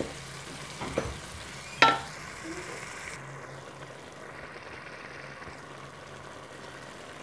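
Soaked urad (mash) daal sizzling in hot oil and masala in a metal pot. A metal spoon clinks against the pot three times in the first two seconds, the last one loudest, then there is only a steady sizzle.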